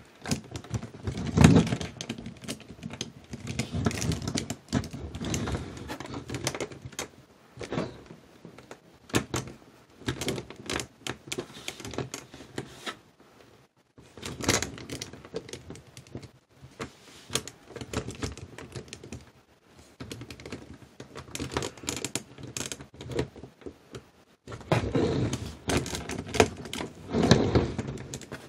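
Plastic action figures, a Marvel Select Hulk and Abomination, handled and posed against each other: a run of irregular clicks, taps and knocks from plastic joints and bodies, with a heavier knock about a second and a half in and a busy spell of clicking near the end.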